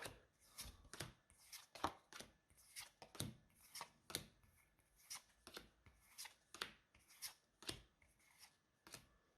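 Faint, quick flicks and slaps of Pokémon trading cards being slid off the stack one after another, about two a second.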